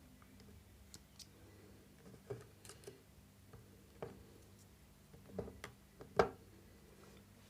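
Scattered clicks and knocks of small tools and parts being handled and set down on a workbench, about nine in all, the loudest knock about six seconds in.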